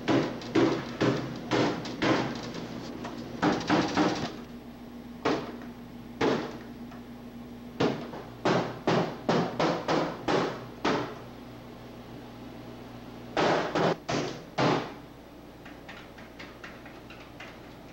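Repeated knocks and bangs on a large wooden television cabinet and its panel, in irregular bursts with short pauses, over a low steady hum.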